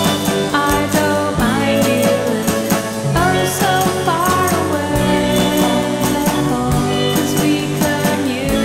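Background song with drums, a steady bass line and a sung melody.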